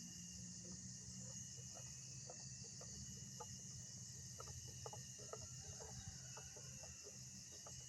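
Faint, short clucking calls scattered irregularly, over a steady high drone of insects.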